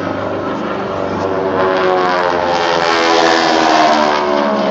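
Engines of a formation of aerobatic airplanes flying overhead, a loud drone that swells to its loudest about three to four seconds in, its pitch sliding as the planes pass.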